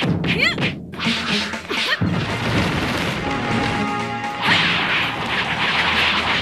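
Added fight sound effects over dramatic music: several quick swishes and hits in the first two seconds, then a sustained crash starting about four and a half seconds in.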